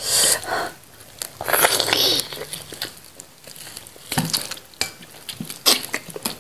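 Close-up eating noises: wet smacking, sucking and tearing as meat is pulled off a cooked goat head by hand and bitten off, in irregular bursts with sharp clicks.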